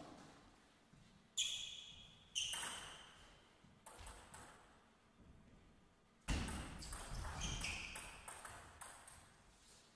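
Table tennis ball bouncing and being struck: two sharp, ringing pings about a second apart, then a louder knock a little past halfway followed by a quick run of hits and bounces in a rally.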